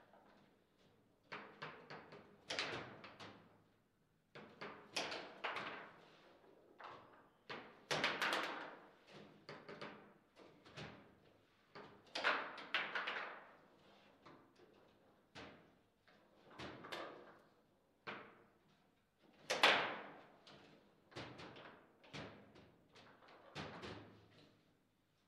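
Table football in play: the ball struck and knocked about by the rods' plastic figures, with quick knocks and clacks in irregular flurries. The loudest hits come about twenty seconds in.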